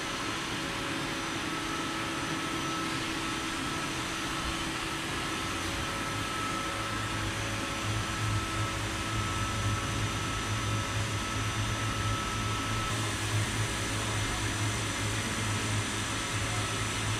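CNC lathe running, its spindle spinning a metal bar while the tool turns ball shapes: a steady mechanical hum and hiss with a faint steady whine. About seven seconds in, a low hum grows stronger and stays.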